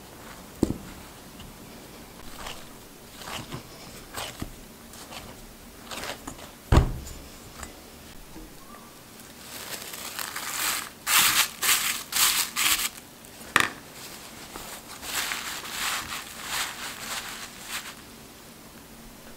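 Hands kneading dough in a glass bowl: soft squishes and clicks with two sharper thumps. From about halfway through, long stretches of rustling and crinkling as the bowl of dough is covered with a towel.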